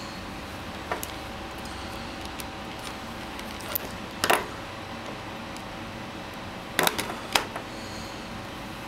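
Small sharp clicks and taps of a jeweller's screwdriver and tiny screws being handled on a phone's plastic and metal frame during disassembly: a handful of separate clicks, the loudest a little after four seconds and around seven seconds in, over a steady background hum.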